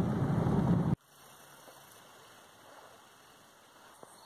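Cabin rumble of a Jeep driving on a rough dirt road, which cuts off suddenly about a second in, leaving a faint, even hiss.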